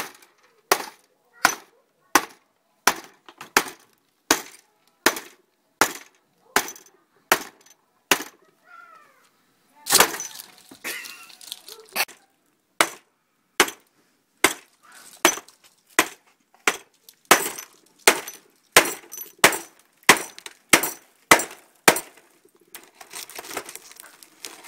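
A claw hammer repeatedly strikes the glass of a flat LCD screen panel: sharp, regular blows about 0.7 s apart. About ten seconds in, a heavier blow is followed by a crackle of breaking glass. The blows then come faster, about two a second, and near the end there is a crunching of broken glass.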